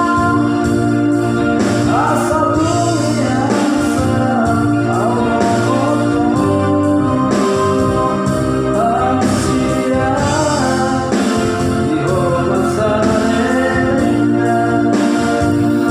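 A person singing along to an electronic keyboard that plays sustained organ-like chords over a steady beat.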